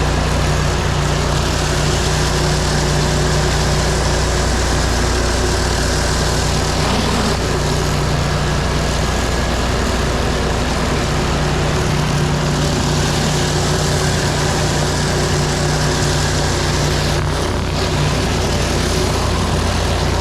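Pressure washer engine running steadily at a constant pitch, under a steady hiss of high-pressure water spraying onto pavers.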